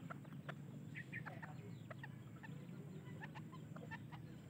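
Serama bantam rooster making soft, short clucks at a few irregular moments, settled in a scrape in the dirt.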